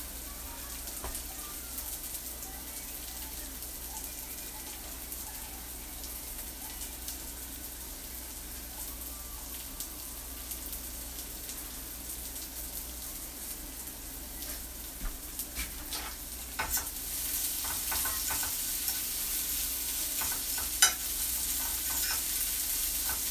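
Sliced onions sizzling in a nonstick skillet on a gas stove. From about fifteen seconds in, a fork clicks and scrapes against the pan as the onions are stirred, and the sizzle grows louder.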